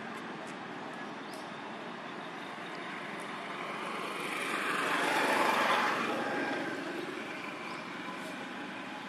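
Steady outdoor background noise, with a vehicle passing that swells to a peak about halfway through and fades away again.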